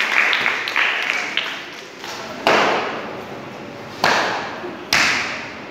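Applause dying away, then three sudden sharp impacts, the first about two and a half seconds in and the last two under a second apart, each ringing briefly in a large room.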